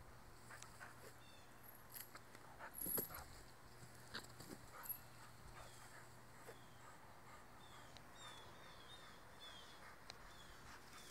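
Mostly quiet. A few short clinks and scuffs from a dog leaping and pulling on a metal chain leash, the loudest about three seconds in. In the second half a small bird chirps repeatedly in the background.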